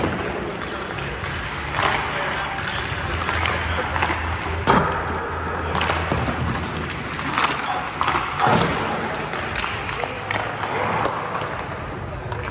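Ice-hockey sticks and pucks clacking sharply against the ice, pads and net several times, over skate blades scraping the ice and the steady hum of the rink.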